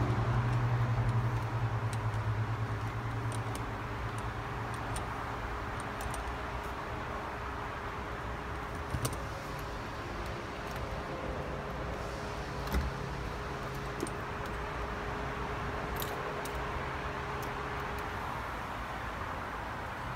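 Scattered light metallic clicks and clinks of a T-handle hex driver and loosened steering-wheel bolts as a steering wheel is unbolted and worked off its column, over a steady low hum that is louder in the first couple of seconds.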